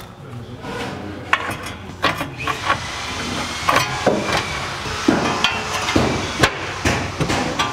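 Irregular hammer taps and knocks, starting about a second in, as an Acura MDX lower control arm is worked out of its tight rubber-bushed mounts.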